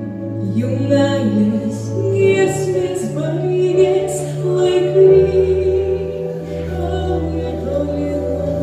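A female voice singing a solo song with piano accompaniment, the piano holding low bass notes beneath the melody.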